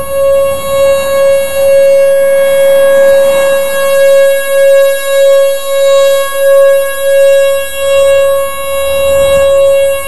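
Pole-mounted nuclear power plant warning siren sounding a steady single-pitch tone for a siren test. Its loudness swells and dips repeatedly, less than a second apart.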